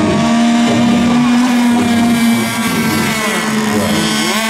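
Several radio-controlled race boats' engines running at full speed together. Their whining pitches rise and fall as the boats pass and turn.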